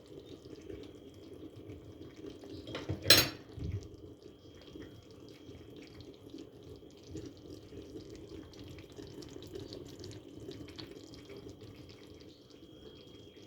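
Water running from a tap into a sink, with one sharp clatter about three seconds in.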